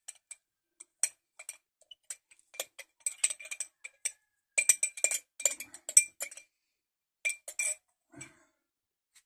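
Small glass jar clinking and tapping in the hands as mushroom spawn is shaken and picked out of it: irregular sharp clicks in clusters, busiest around the middle.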